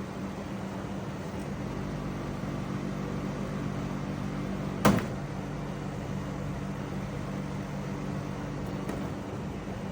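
A compressor dehumidifier running with a steady low hum and fan noise. A single sharp click comes about halfway through.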